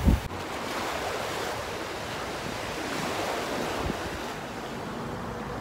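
Small sea waves washing onto a pebble beach: a steady, even rush of surf.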